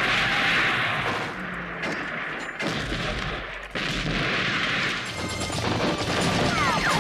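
War-film battle sound effects: rifle and machine-gun fire with explosions, and a sudden blast a little under four seconds in.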